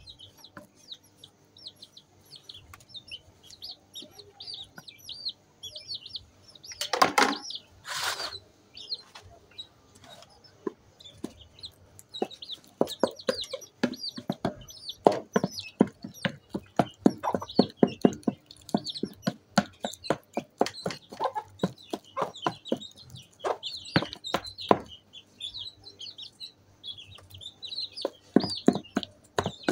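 Wooden stick pounding and mashing ripe bananas in a plastic basin: from about twelve seconds in a steady run of sharp knocks, two or three a second. Chickens cluck and chirp throughout.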